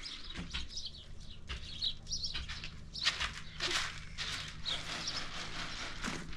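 Small birds chirping in short, scattered calls, over faint rustling and handling noises.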